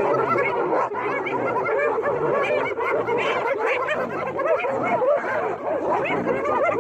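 A pack of spotted hyenas giggling all at once, many short high chattering calls overlapping without a break, the excited giggling of hyenas mobbing a lion.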